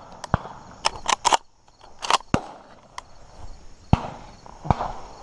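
Footsteps and handling noise from walking through weeds and grass: a string of irregular sharp clicks and knocks, with light rustling between them.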